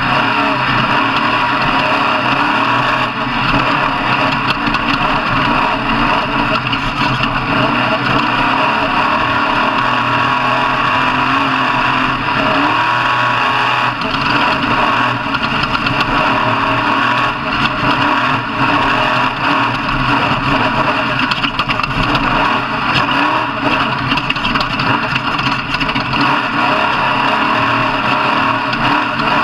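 Off-road truck engine running loudly and steadily.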